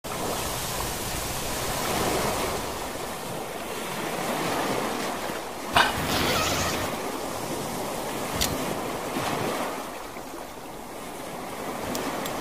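Sea waves washing onto a sandy shore, swelling and easing every few seconds. A sharp click comes about six seconds in and a smaller one near eight and a half seconds.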